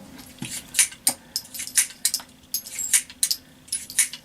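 Small metallic clicks and clinks, several a second and uneven, from handling .22 cartridges.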